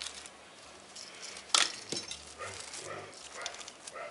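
A screwdriver prying copper windings out of the steel stator of a refrigerator compressor's electric motor, with a sharp metallic click about a second and a half in, then scraping and rustling of the torn wire.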